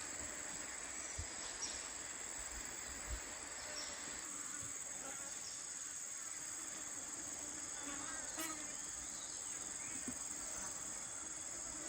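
Steady high-pitched drone of a jungle insect chorus, with a few faint low thuds in the first few seconds.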